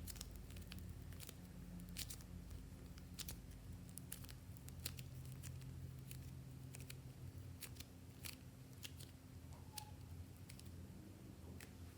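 Slime being squished and mixed, giving faint, irregular sticky clicks and pops over a low steady hum.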